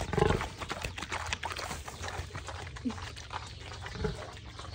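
Pig chewing a banana with open-mouthed, wet smacking and crunching, with a louder low grunt right at the start and a couple of short soft grunts later.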